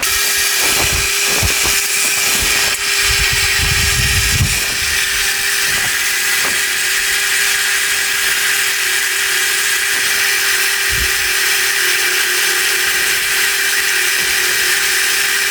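Milling machine running with a 12 mm end mill, cutting a groove in hard steel: a steady hum with one even tone and a strong high hiss, starting suddenly.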